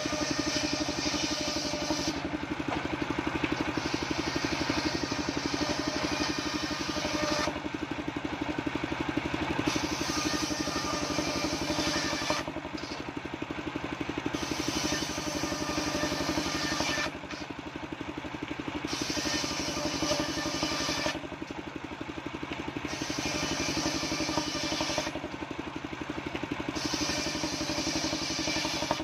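Homemade circular sawmill ripping waru wood into battens. The blade's cutting noise swells and drops in stretches of a few seconds as each piece is fed through, over the steady running of the engine that drives it.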